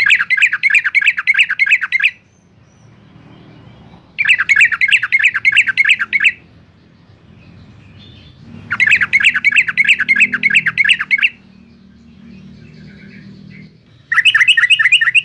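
Yellow-vented bulbul singing in full, loud song: four bursts of about two seconds each, made of rapid repeated chattering notes, with pauses of about two seconds between them.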